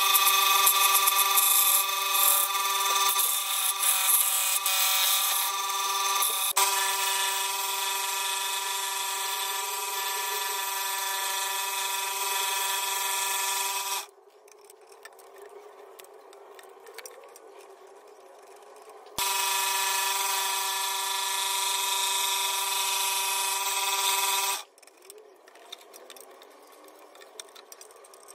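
Electric scroll saw running with a steady high-pitched whine. It stops about 14 seconds in, starts again about 19 seconds in, and stops again about 24 seconds in. In the gaps there are only faint handling sounds while the blade is threaded through the next drilled hole for an interior cut.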